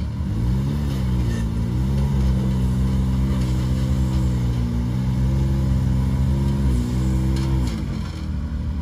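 Can-Am Maverick X3 Max side-by-side's turbocharged three-cylinder engine at low revs, pulling the machine up a loading ramp into a trailer. The revs rise and ease off several times, dropping lower near the end as it comes to rest.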